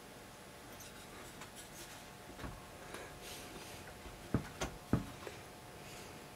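Faint handling noise and small metallic clicks as hands work the retaining clip off a vacuum tube and ease it out inside a radio's metal chassis, with three sharper clicks between about four and five seconds in.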